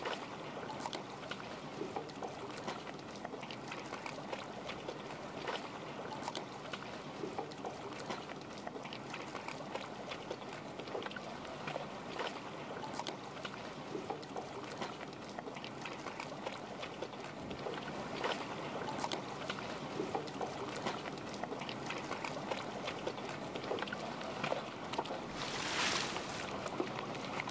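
Steady ambience of water lapping and trickling, flecked with many small clicks and crackles, with a brief louder rush of noise near the end.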